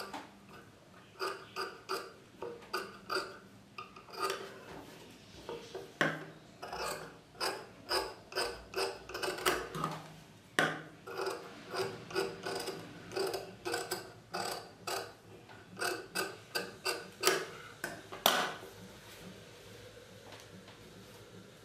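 Large tailor's scissors trimming cloth: a run of short, sharp metallic snips, a couple a second and uneven, thinning out over the last few seconds.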